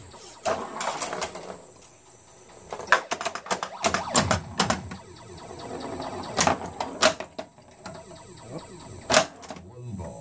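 Bally Eight Ball Deluxe pinball machine in action: clusters of sharp mechanical clacks and knocks from its solenoids and the ball. The thickest runs come about half a second in and again from about three to five seconds in, with single loud knocks after that. A faint steady high whine sits underneath.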